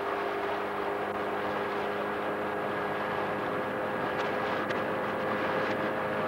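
Outboard motor of a coaching launch running steadily at cruising speed, a constant engine hum over water and wind noise.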